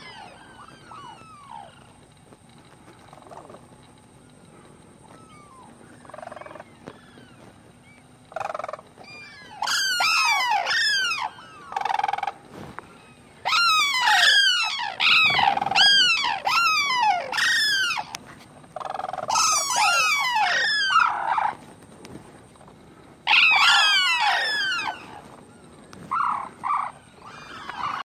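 Sarus cranes calling: groups of loud, overlapping trumpeting calls from several birds, each call rising and falling. A few faint calls come first, the loud groups start about eight seconds in and come back several times, with a few single calls near the end.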